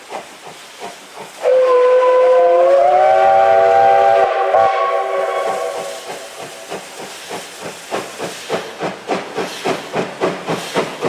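Steam locomotive whistle blown once for about three seconds, a chord of several tones that rises slightly in pitch as it opens fully, then dies away. The locomotive's exhaust chuffs run in a steady beat that quickens from about two to three a second as the train gets under way.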